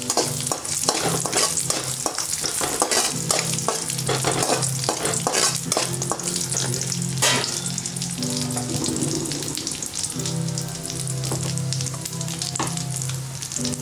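Cashews and raisins frying in hot ghee in a metal kadai: irregular sizzling and crackling, thickest in the first half, with a spatula stirring and scraping in the pan as the cashews turn golden brown. A steady low hum runs underneath and fades in and out.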